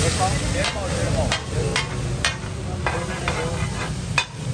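Fish sizzling as it fries on a large street-stall tawa, with sharp metal clinks about every half second and short scrapes of a steel spatula on the griddle.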